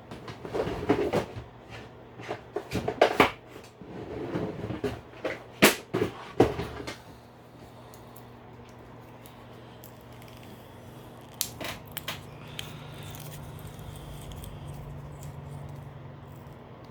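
Small hard objects being handled on a tabletop: a busy stretch of clicks, taps and scraping for the first seven seconds, then only a few isolated clicks over a faint low hum.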